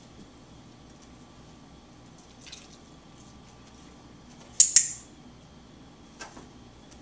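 A handheld dog-training clicker clicks once about two-thirds of the way in, a sharp two-part click-clack as it is pressed and released, marking the dog's response during shaping. A couple of fainter taps come before and after it.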